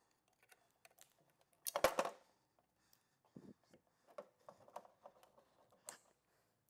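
Clinks and taps of metal engine parts as a Rover V8 front cover and oil pump are taken apart by hand, with a louder clatter of several sharp clicks about two seconds in and scattered lighter taps after it.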